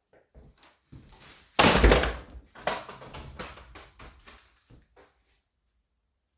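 Plastic box fan being handled and thrown out: light knocks, then a heavy thud about a second and a half in, followed by clattering and rustling that die away.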